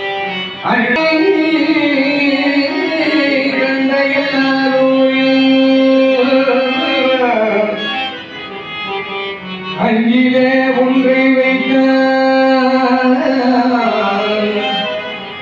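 Carnatic devotional music: long, held melodic notes that slide between pitches, singing with instrumental accompaniment. A new phrase begins about a second in and another about ten seconds in.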